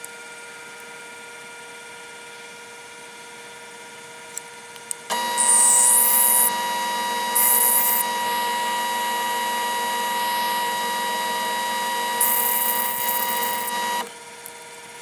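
Metal lathe running with a steady whine. From about five seconds in, a twist drill held in the toolpost cuts into the spinning steel work, much louder with several steady tones and three spells of high-pitched cutting noise. The cutting stops abruptly about a second before the end.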